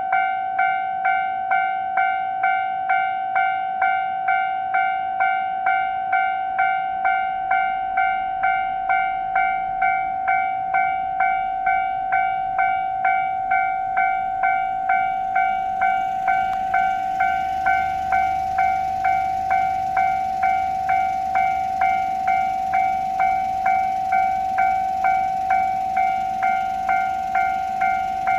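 Japanese level-crossing warning bell ringing steadily, about one and a half electronic strikes a second. From about two-thirds of the way in, a train's low rumble and rail noise build up under the bell as the train comes through.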